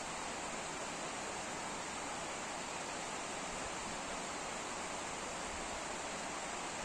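Steady, even rush of flowing water at a small irrigation dam, with no change in level.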